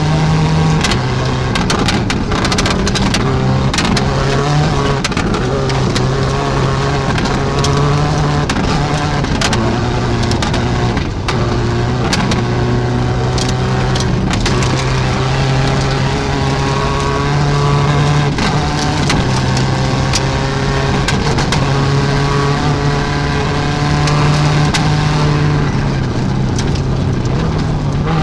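Inside the cabin of a 2007 Subaru WRX STI rally car with a 2.0-litre turbocharged flat-four at speed on a gravel stage: the engine runs hard, its pitch climbing and dropping in steps through the gear changes. Frequent sharp cracks and clatters sound over it.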